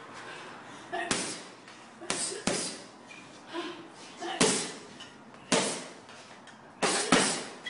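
Punches landing on a 550 lb heavy bag: about seven hard thuds at an uneven pace, two of them in quick pairs.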